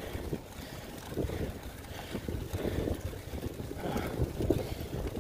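Strong wind buffeting the microphone in uneven gusts, a low rumble that swells and drops.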